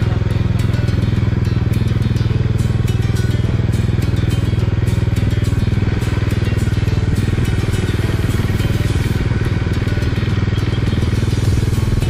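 Bajaj Dominar 400's single-cylinder engine running steadily at a cruise, heard from on the moving motorcycle.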